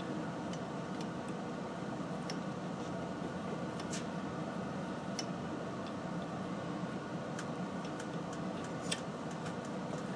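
A steady low machine hum with scattered, irregular light metallic ticks, as a tap or die is run into a test piece on the lathe.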